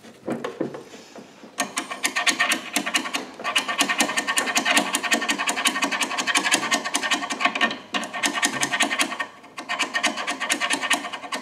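Rapid back-and-forth scraping as rust and grime are scrubbed off a rusty steel go-kart axle by hand, stopping briefly twice. The axle is being cleaned so the rusted-on bearing can slide off.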